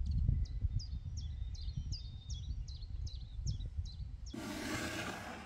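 A small bird singing a run of short, high chirps, each falling quickly in pitch, repeated about three times a second. Under it, a low, uneven rumble of wind buffeting the microphone. About four seconds in, the chirps give way to a burst of hiss lasting about a second.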